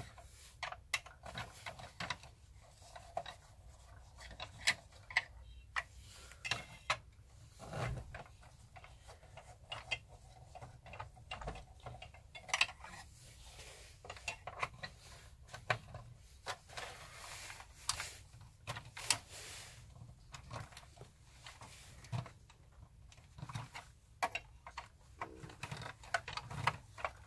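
Screwdriver working small screws out of the plastic body of a 1980s MB Bigtrak toy, with scattered light clicks, taps and plastic knocks as the parts are handled.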